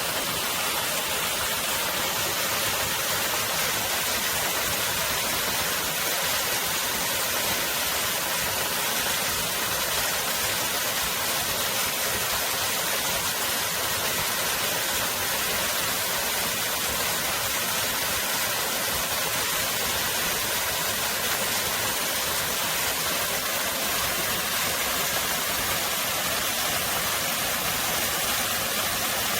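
Mountain stream water rushing steadily over rocks, a continuous even hiss of flowing water.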